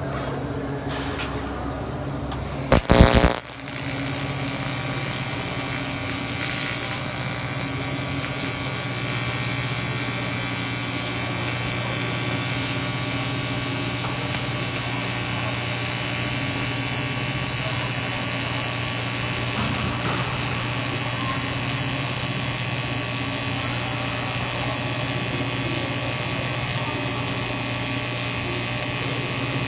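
AC TIG welding arc on aluminium: a short loud crackle about three seconds in as the arc strikes, then a steady electric buzz with a hiss over it.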